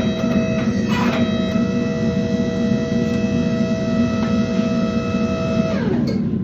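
Guitar background music: a held note that slides down in pitch near the end, over a steady low rumble of shop machinery.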